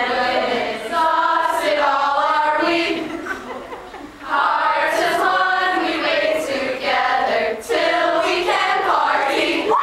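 A group of young men and women singing together, with a brief quieter lull about three seconds in.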